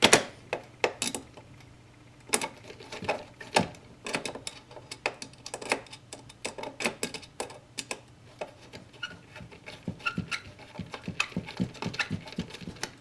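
Irregular clicks, taps and small knocks of a fire alarm pull station being closed back up by hand after its reset, over a low steady hum.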